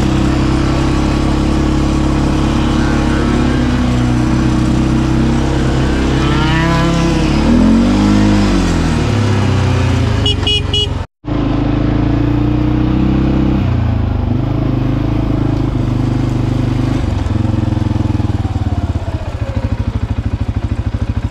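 CFMoto ATV engine running while riding, heard from the rider's seat. Its note rises and falls about eight seconds in, the sound drops out for a moment about eleven seconds in, and near the end the engine settles into a slower, pulsing beat as the ATV slows.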